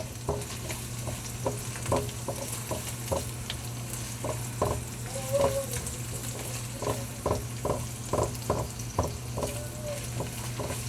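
Onion, garlic and minced ginger sizzling in hot oil in a pan while a utensil stirs them, knocking and scraping against the pan in short, irregular strokes.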